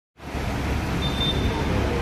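Steady outdoor ambience: a continuous hiss with a heavy, uneven low rumble of wind buffeting the microphone, starting abruptly just after the clip begins.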